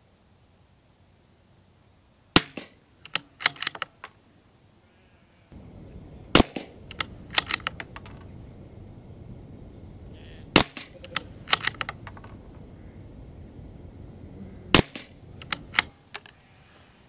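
Four shots from a CZ 457 Royal bolt-action .22 LR rifle firing SK Rifle Match ammunition, about four seconds apart. Each shot is followed by a quick run of metallic clicks as the bolt is worked to eject the case and chamber the next round. A steady low background noise runs from about five seconds in until near the end.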